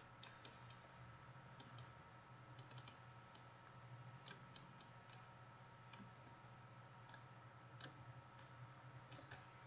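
Faint, irregular clicks of a computer mouse, some in quick pairs, over a low steady hum.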